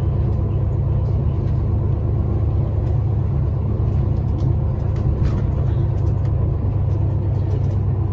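Steady low rumble of a city bus's engine and drivetrain heard from inside the passenger cabin as it drives, with faint scattered clicks and rattles.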